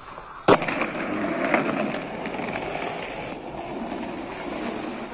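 Skateboard wheels rolling over concrete with a steady rumble, after a single sharp clack of the board about half a second in.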